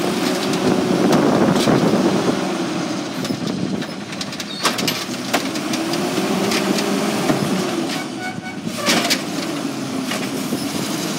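Automated side-loading garbage truck's hydraulic arm lifting a trash cart, dumping it into the hopper and lowering it back to the curb: the truck's natural-gas engine and hydraulics whine in a tone that rises and falls twice as the arm goes up and comes back down, with sharp knocks of the cart against the arm.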